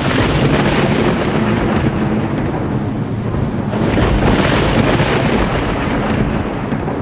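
Thunder sound effect: a peal that breaks suddenly and rolls on, with a second loud roll about four seconds in.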